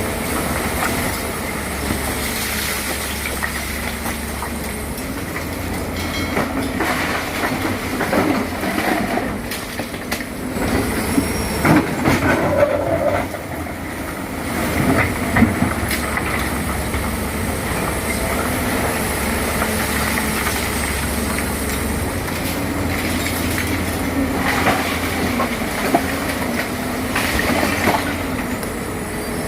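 Tracked excavator at work: the diesel engine runs steadily under varying load, with metallic clanking and squealing from the steel tracks and working parts, and scattered knocks.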